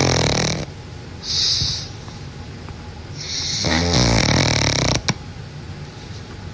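Pug snoring in its sleep: three wheezy snores, a short one in the middle and the longest about three to five seconds in.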